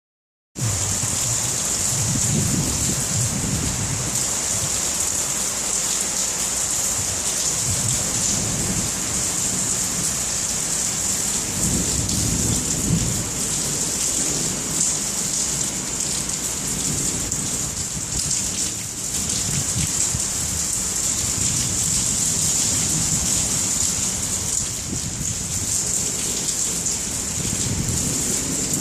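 Steady heavy rain hissing down, with thunder rumbling low several times.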